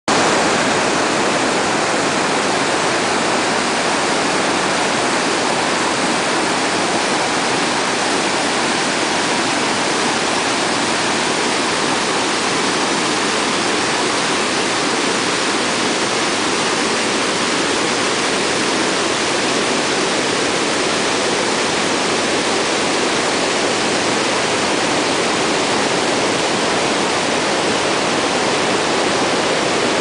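Alpine mountain torrent rushing and cascading over boulders: loud, steady whitewater noise.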